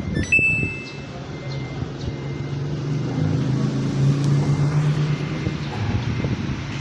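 Samsung top-loading washing machine accepting the start command: a short high beep about half a second in, then a steady low hum as the machine begins its wash cycle.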